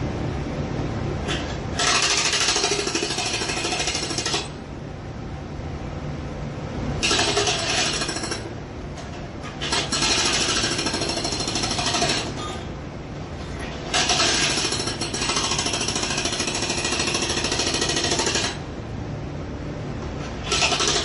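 Jackhammer breaking material in bursts of a few seconds each, five in all, the last starting just at the end, with short pauses between. A steady low rumble of background noise carries on through the pauses.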